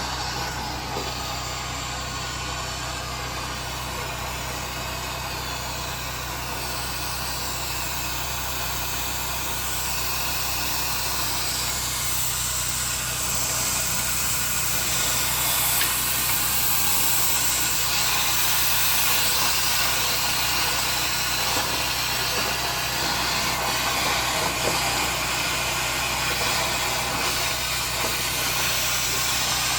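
Duct-cleaning power vacuum running steadily with a low hum and a hiss of rushing air, the hiss growing brighter and a little louder from about ten seconds in.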